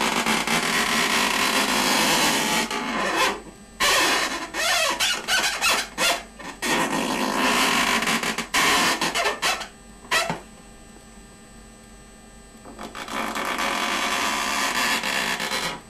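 Felt-tip marker scrubbing back and forth on an inflated 5-inch round latex balloon while filling in black eyes: a squeaky, rasping rub of latex. It comes in stretches of quick strokes with short breaks, stops for about two seconds past the middle, then starts again for a last stretch near the end.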